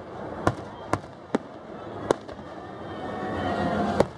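Aerial fireworks shells bursting overhead: five sharp bangs, four in the first two seconds and the loudest about four seconds in, over a background noise that swells just before that last bang.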